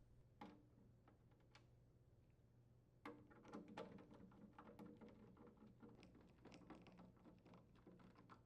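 Faint, irregular small clicks and ticks as a trash compactor drawer latch is set on the container and its 1/4-inch hex head screws are driven in with a screwdriver. A few clicks come first, then a steady run of them from about three seconds in.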